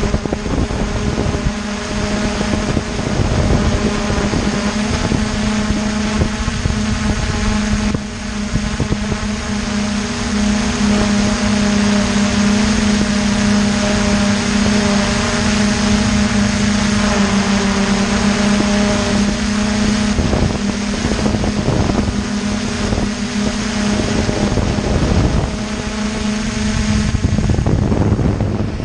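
Aton drone's motors and propellers buzzing steadily in flight, a constant pitched hum with a row of higher overtones, heard up close from on board, with wind gusting over the microphone.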